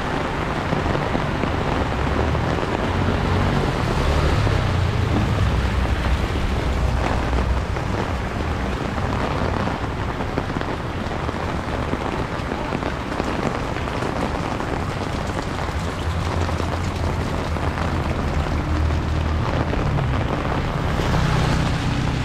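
Steady rain falling, a dense even hiss with a low rumble underneath.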